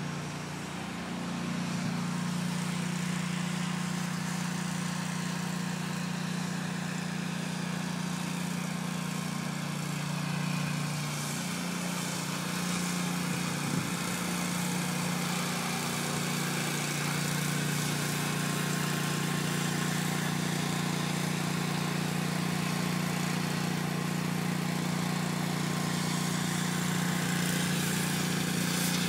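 An engine running steadily: a constant low drone with an even hiss above it, without revving or pauses.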